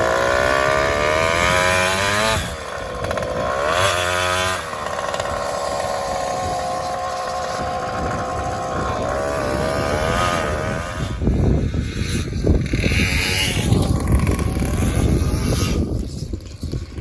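Two-stroke chainsaw engine with an expansion chamber driving a homemade motorized bicycle, revving up through its gears: the pitch climbs, falls back at a shift about two and a half seconds in, climbs and falls again near four and a half seconds, then holds steady. From about eleven seconds it runs lower and less even.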